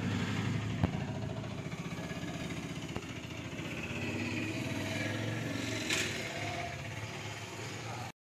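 A small engine running steadily at a low, even pitch, with a few short clicks about a second in, at three seconds and near six seconds.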